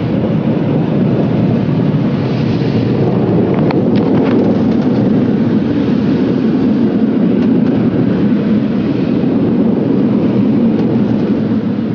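Steady, loud rumble of an automatic tunnel car wash working over the car, heard from inside the car's cabin, with a few faint ticks about four seconds in.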